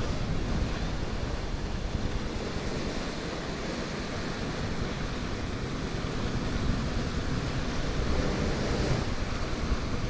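Steady ocean surf, with wind rushing over the microphone.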